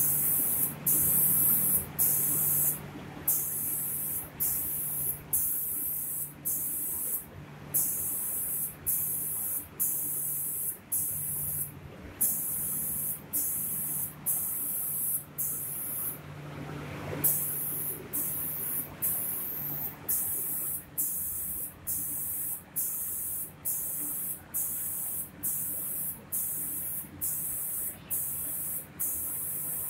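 Automatic spray gun of a cabinet-door painting machine hissing in short bursts, switching on and off about once a second as it sprays the doors, over a steady low hum from the machine.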